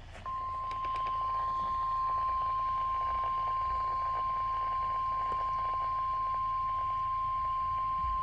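NOAA Weather Radio 1050 Hz warning alarm tone, sounded for the Required Weekly Test. It is one steady high-pitched beep that starts a moment in and holds unbroken, received over a weather radio.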